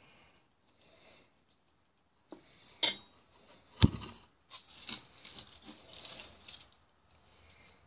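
A metal spoon clinking sharply against a stainless steel cooking pot about three seconds in, then a heavier knock a second later. After that come a couple of seconds of crinkling and rustling as aluminium foil is handled.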